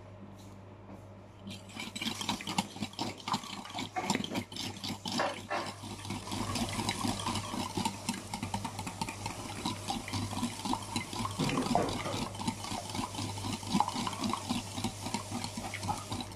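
Eggs being beaten by hand in a bowl: a utensil whisking the liquid in quick, steady strokes, starting about a second and a half in.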